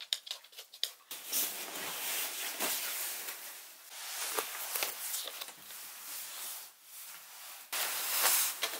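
Rustling of clothing and handling noises while clothes are taken out of a wardrobe, starting with a few light clicks and getting louder near the end.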